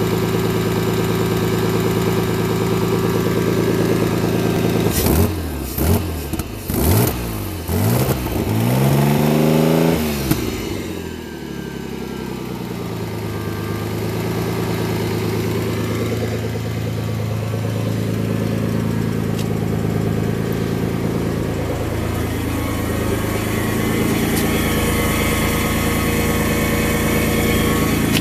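Ford Cosworth 2.9 24V V6 engine idling steadily, then blipped several times in quick succession from about five to ten seconds in, the pitch rising and falling with each blip, before it settles back to a steady idle.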